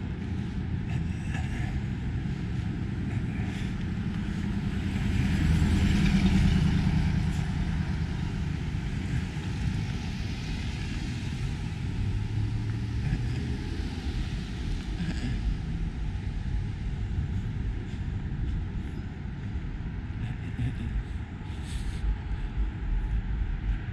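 Street traffic at night: a steady low rumble of cars, swelling as a vehicle passes about five seconds in.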